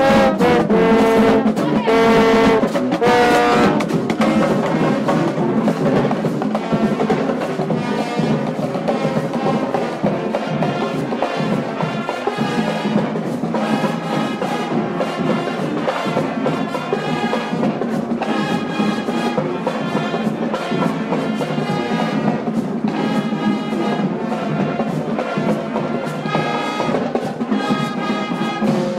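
High school marching band playing: a brass section of mellophones and trumpets over drumline beats. It opens with a few loud held chords, then moves into a busier continuous tune.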